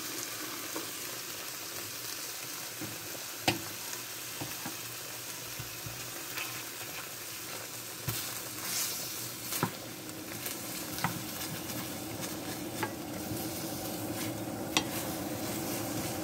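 Skin-on chicken pieces sizzling steadily in their own rendered fat in a stainless steel frying pan, with scattered sharp ticks and pops. The loudest tick comes about three and a half seconds in.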